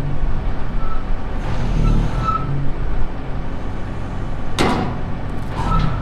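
Feed truck's engine running steadily to drive the hydraulics while the unloading auger is swung in, with a brief hydraulic whine coming and going, a noisy rush about a second and a half in, and a sharp metallic noise about four and a half seconds in.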